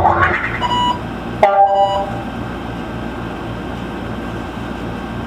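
Keyboard synthesizer: the last notes ring out, a chord is struck about a second and a half in and fades, then the synth holds a steady noisy rumble with a low pulse repeating several times a second.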